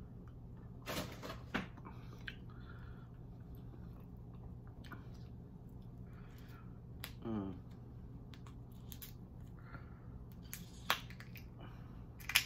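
Close-up eating sounds of someone working at a tiger prawn: a few scattered sharp smacks and clicks over a low steady hum, with a short hummed "mm" about seven seconds in.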